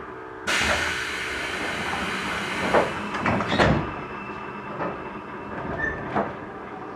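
Air hiss from a standing electric train's compressed-air system, starting suddenly and cutting off after about three seconds, with a few knocks near its end and two more later, over the quiet hum of the stationary railcar.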